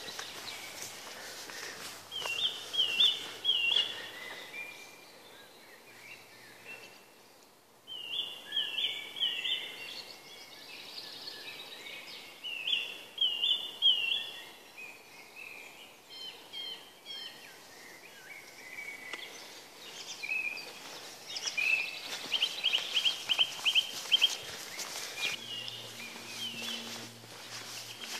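Woodland songbirds singing. One bird repeats short phrases of three quick high notes several times, and a fast trill comes about three quarters of the way in, over faint footsteps on a gravel path.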